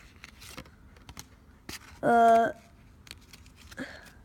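Baseball cards being handled and flipped through, making scattered light clicks and taps. About two seconds in, a short held voice sound, a steady-pitched 'mmm', is the loudest thing.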